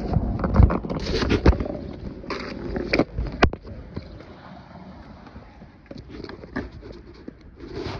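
Skateboard wheels rolling over a cracked concrete sidewalk: a steady rumble with sharp clacks. The clacks come thick in the first second and a half, there is one loud clack at about three and a half seconds, and after that the rolling goes on more quietly with only a few light knocks.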